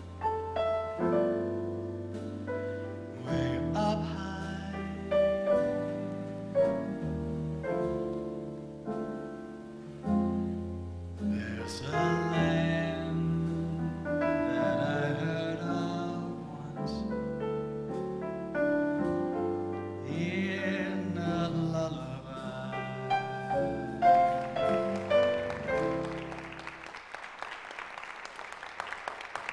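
Live jazz combo playing a slow ballad on piano and upright bass while a man sings. About 27 seconds in the music stops and audience applause starts.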